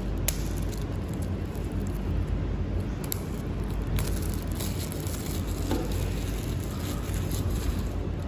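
Clear plastic shrink-wrap crinkling as it is peeled off a small cardboard product box, with scattered sharp crackles, over a steady low background rumble.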